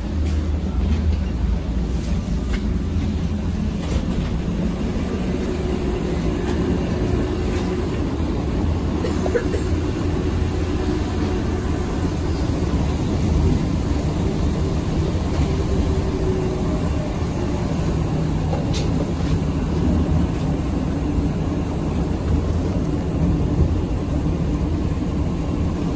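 Ride noise inside a moving ZiU-682G-016.02 trolleybus: a steady low rumble from the running gear and road. A faint steady hum joins it for a stretch in the middle.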